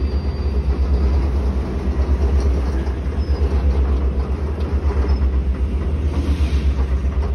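Freight train's boxcars and hoppers rolling slowly past on the track as the train slows down, a steady low rumble with no distinct clanks or horn.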